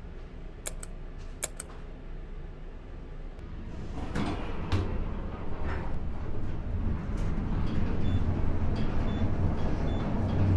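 Glass passenger lift aboard a ferry: a couple of sharp clicks as the doors work, then the car travelling with a low rumble that grows louder toward the end.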